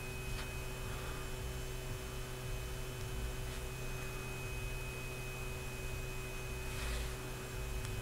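Steady low electrical hum with a thin, faint high-pitched tone above it, and three faint soft rustles spread through it.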